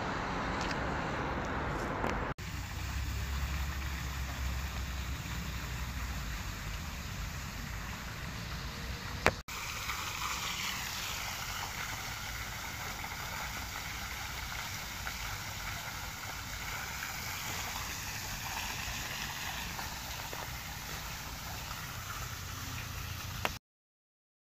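Outdoor noise with a low wind rumble on the microphone, broken by a sharp click about nine seconds in. Then a small fountain's jet splashing into its stone basin, a steady hiss of falling water that cuts off suddenly near the end.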